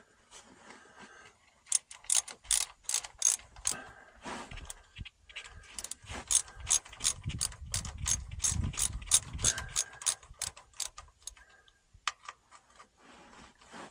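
Hand ratchet wrench clicking in quick runs of strokes, with short pauses between, as nuts are worked on the studs under the VW Beetle's flat-four engine during an oil change.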